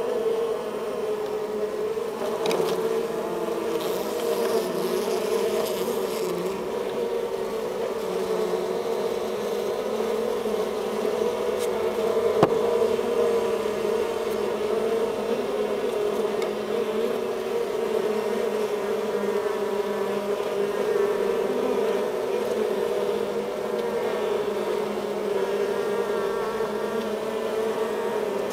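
Steady hum of a honeybee colony heard close up from inside the hive, many bees' wingbeats blending into one drone. A single sharp click about halfway through.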